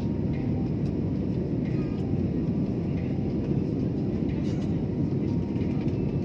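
Airliner cabin noise: the steady, deep rumble of jet engines and airflow heard from inside the passenger cabin.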